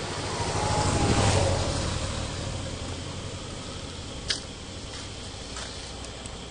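A motor vehicle passing by: its engine noise swells to a peak about a second in, then fades as its tone falls in pitch. A single sharp click follows about four seconds in.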